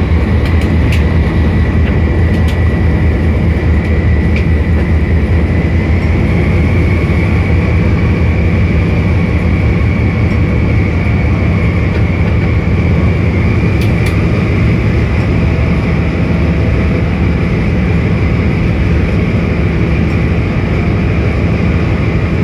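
Diesel locomotive running under way, heard inside its cab: a loud, steady low rumble, with a thin steady high whine and a few faint sharp ticks.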